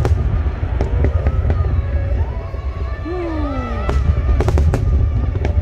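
Aerial fireworks display: a string of sharp bangs and cracks from bursting shells over a continuous deep rumble.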